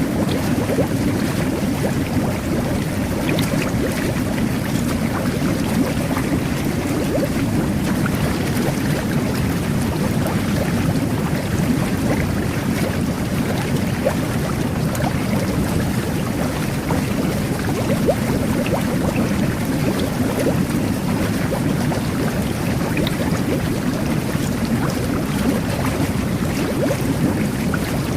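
Jet bath running: underwater jets churn the bath water into a steady rush of bubbles, with faint crackles of bursting bubbles throughout.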